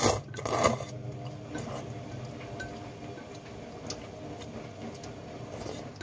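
Noodles slurped twice in the first second, then chewing and a few light clicks, one sharper about four seconds in, over a steady low hum.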